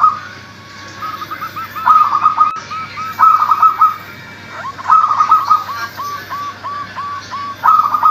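Local zebra dove (perkutut) singing in repeated phrases, each a quick run of short, clipped coos. The phrases come one after another with brief gaps.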